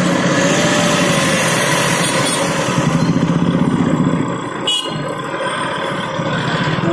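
Motorcycle engine running steadily while ridden slowly through street traffic, with other vehicles around it. The sound dips briefly with a click about two-thirds of the way through.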